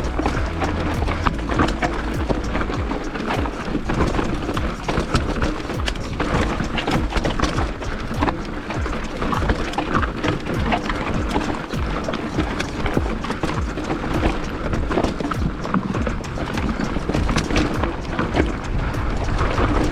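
Mountain bike rattling and clattering downhill over loose rocks: a dense run of knocks and clicks from the tyres, chain and frame, over steady rushing noise.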